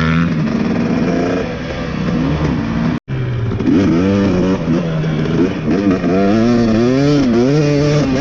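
Dirt bike engine being ridden, its pitch rising and falling as the throttle opens and closes, with a brief drop-out about three seconds in.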